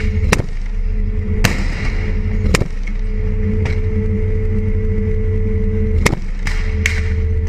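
Armoured vehicle's diesel engine running with a steady low drone, under about eight sharp gunshot cracks at irregular intervals, three of them in quick succession near the end.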